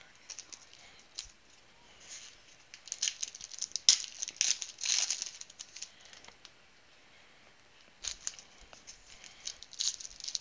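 Foil and cellophane trading-card pack wrappers crinkling and tearing as packs are opened. The crinkling comes in bursts, about three to five seconds in and again near the end, quieter in between.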